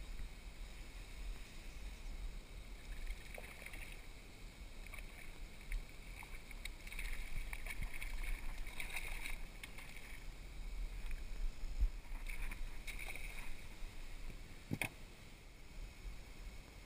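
Water splashing in repeated bursts as a hooked tarpon thrashes at the surface beside a small boat, with a single sharp knock near the end.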